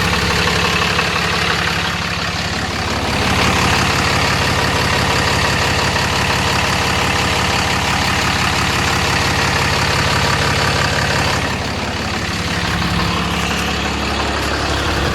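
2009 Dodge Ram 5500 wrecker's 6.7 L Cummins turbo-diesel idling steadily. It is louder for several seconds in the middle.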